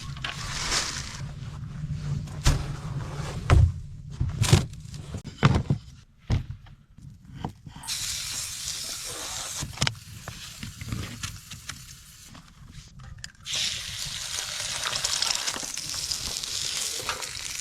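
A few sharp knocks and clatters, then food frying in a pan with a steady sizzle that starts about halfway through and grows stronger near the end.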